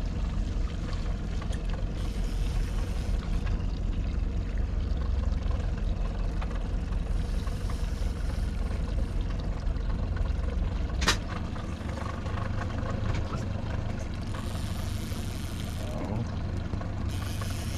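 Honda outboard motor running steadily at trolling speed, a low even hum. A single sharp knock about eleven seconds in, after which the deepest part of the hum drops away.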